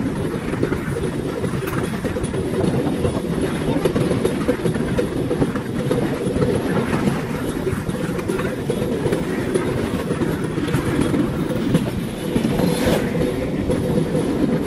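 A bamboo train (norry) riding along its narrow-gauge track: a steady low rumble with the clatter of its wheels on the rails.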